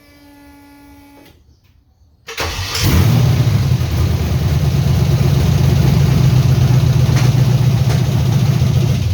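A short whine that dips in pitch and then holds steady for about a second. Then the LS V8 in a 1979 Ford F-150 cranks and catches a couple of seconds in, and runs loud and rough, misfiring, with a couple of sharp pops near the end.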